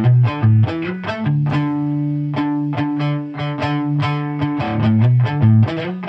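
Punk rock instrumental: a distorted electric guitar playing a riff of low chords in a fast, even rhythm with drums, the chords shifting in pitch a few times.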